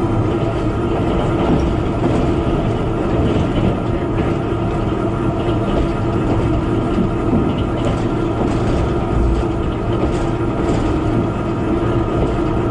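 Interior running noise of a JR Kyushu KiHa 72 diesel railcar travelling at speed: a steady drone with wheel-on-rail noise.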